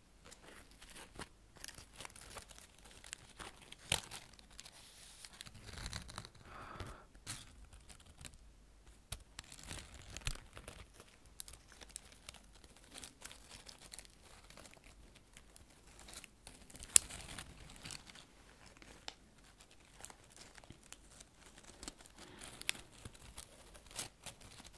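Dry leaves crinkled and crushed between gloved fingers close to the microphone: irregular crackles and rustles, with one louder snap about two-thirds of the way through.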